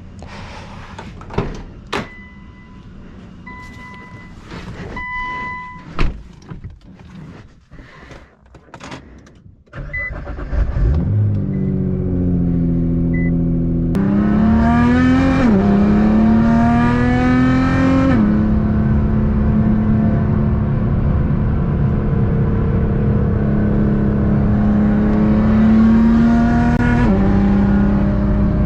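A few clicks and short electronic chime beeps, then about ten seconds in a car engine starts up. It rises in pitch twice, then holds a steady, fast idle that drops a step near the end.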